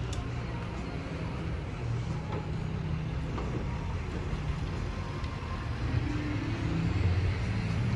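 Heavy-duty pickup truck engine idling steadily with a low hum.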